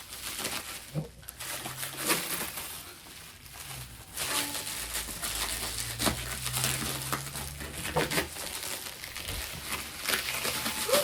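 Packaging wrap crinkling and rustling as it is pulled and torn off a newly delivered drum, growing louder about four seconds in.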